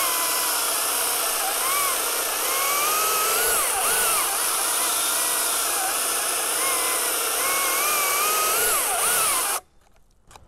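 Cordless battery top-handle chainsaws cutting through a log: a high electric-motor whine over chain noise, dipping in pitch as the chain bites into the wood and recovering between cuts. It cuts off abruptly near the end, with the battery dead.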